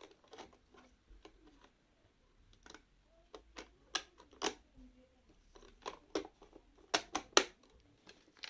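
Light plastic clicks and snaps as the removable brush parts of a Xiaomi Mi Robot Vacuum-Mop 2 Pro are taken out and clipped back in. The clicks come irregularly, sharper and louder from about halfway through.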